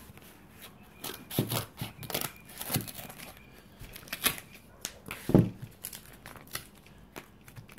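Corrugated cardboard crackling and rustling as it is handled and cut with large kitchen scissors, in irregular snips and snaps; the loudest snap comes about five seconds in.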